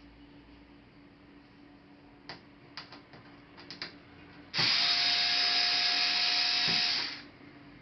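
A small handheld power tool runs in one steady whir for about two and a half seconds, then stops. A few sharp clicks of small parts being handled come before it.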